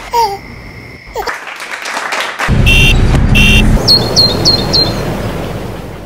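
Two glass bottles clinked together, ringing briefly. About two and a half seconds in, loud traffic noise starts, with two short car-horn toots and then four quick high chirps.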